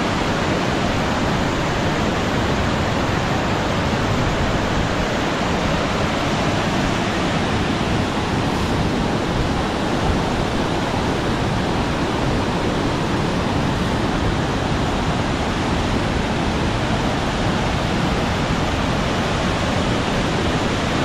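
Steep mountain waterfall cascading over boulders, a loud, steady rush of water.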